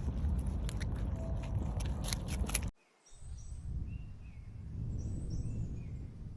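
Low rumbling noise scattered with sharp clicks; it cuts off suddenly about three seconds in. Birds then chirp in short, repeated calls over a softer low rumble.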